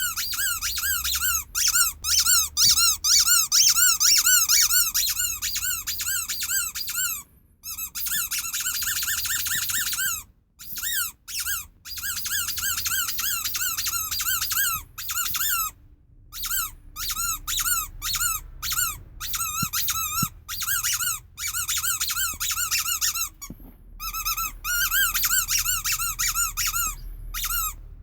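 Rubber sheep squeaky toy squeezed again and again in quick runs, about three or four squeaks a second. Each squeak rises and falls in pitch, with short pauses between runs.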